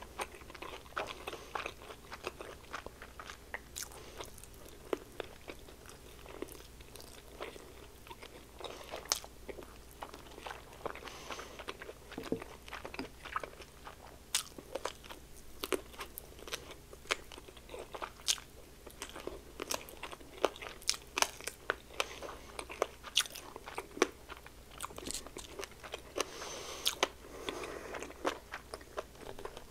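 Close-miked chewing of crispy breaded fried chicken wings: many sharp, irregular crunches of the fried crust between the teeth.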